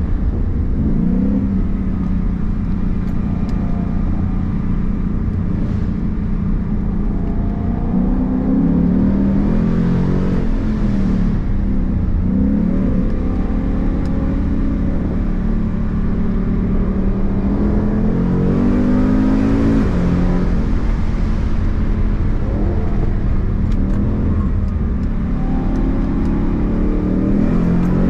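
Ford Mustang engine heard from inside the cabin, its note rising and falling again and again as the car accelerates out of bends and eases off, over a steady rumble of road and tyre noise.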